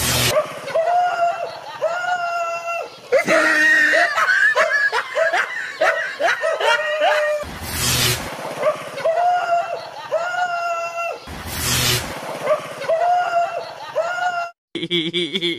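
Comedy laughter sound effects laid over the clip: a high laughing voice repeats again and again, with a stretch of squealing and screaming voices a few seconds in and a few short bursts of noise.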